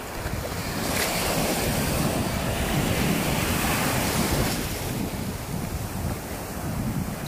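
Sea surf breaking and washing around the shallows, with a louder rush of foaming water from about a second in until about four and a half seconds in. Wind buffets the microphone throughout.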